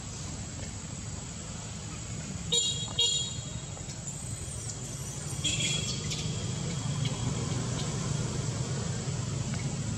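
Steady low traffic rumble with two short, loud vehicle-horn toots about two and a half and three seconds in, and a fainter pitched call a few seconds later.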